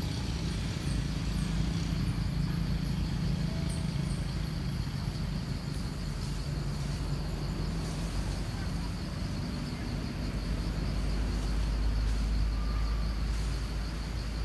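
Outdoor ambience: a steady low rumble like a running engine, with a steady, high, faintly pulsing insect trill over it and a few faint high ticks.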